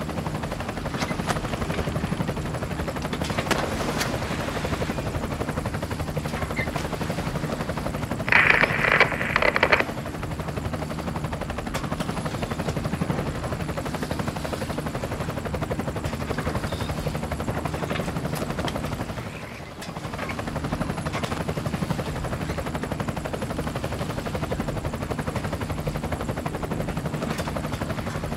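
A steady motor hum, a low buzz that holds the same pitch throughout. There is a brief louder burst about eight to ten seconds in and a short dip near twenty seconds.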